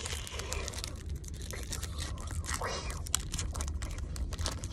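Crinkling and rustling of a foil Pokémon card booster pack being handled: many short crackles over the steady low rumble of a car cabin on the road.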